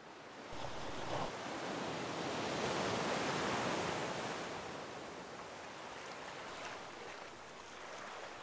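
Sea surf washing and foaming over the shore, a steady rush of water that swells to its loudest about three seconds in, then eases.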